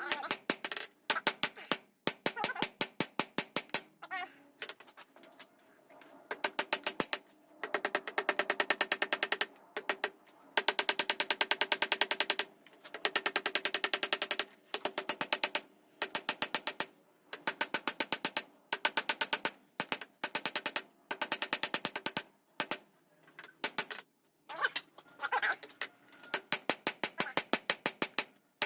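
Rapid runs of hammer blows on hot steel over an anvil, several strikes a second, with a high ringing after each blow and short pauses between runs: forging the edge of a knife blade made from an old file, working out a 'fish lip'.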